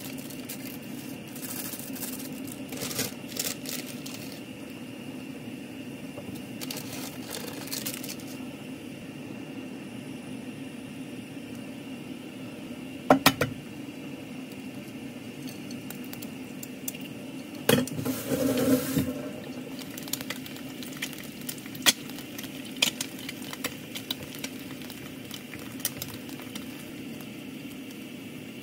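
Frying an egg in a pan of oil on a stove: the egg is tapped sharply twice against the pan about 13 seconds in, then a short loud sizzle about 18 seconds in as it drops into the hot oil. A steady low hum runs underneath, with rustling in the first few seconds and scattered light clicks and taps later.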